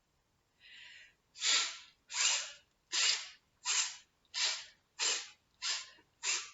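A person repeating the voiceless 'th' sound as a string of short breathy puffs, tongue between the teeth, imitating a chugging train. The puffs come about one every 0.7 s, speeding up slightly, with a faint first one.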